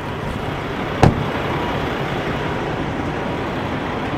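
Steady road traffic and engine noise, with a single sharp knock about a second in.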